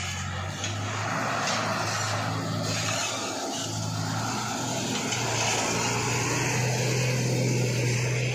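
Diesel engines of heavily loaded cargo trucks running as they creep past at low speed. The engine note is steady and climbs slightly in pitch about halfway through.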